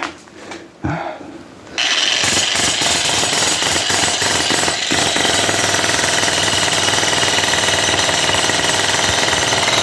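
Jackhammer breaking up a four-inch floor slab. After a few knocks, it starts about two seconds in and runs steadily with a fast, even hammering.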